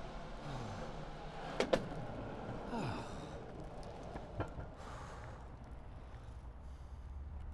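Longboard wheels rolling along a tarmac path with a steady low rumble, broken by a few sharp clicks, one under two seconds in and another past four seconds.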